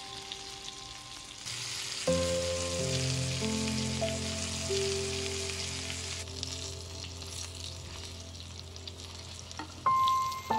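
Flour-dredged chicken cutlets sizzling steadily as they fry in hot fat in a nonstick pan. Soft background music joins about two seconds in, and there is a sudden louder sound near the end.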